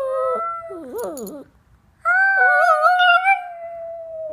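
Small long-haired dog howling: a wavering howl with another howling voice overlapping at first, ending about a second and a half in, then after a short pause one long, wavering howl of about two seconds.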